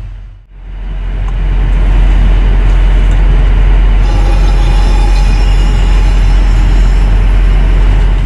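Steady, loud low rumble of an airliner's cabin noise in cruise, heard inside the aircraft lavatory. It dips out briefly about half a second in, then carries on unchanged.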